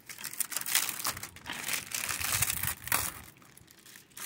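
Plastic shrink-wrap on a DVD case being slit and peeled off, crinkling and crackling irregularly. It goes quieter for most of the last second.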